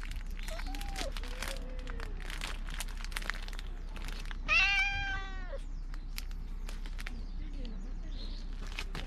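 Cat meowing: two short, quiet meows in the first two seconds, then one loud, long meow about four and a half seconds in.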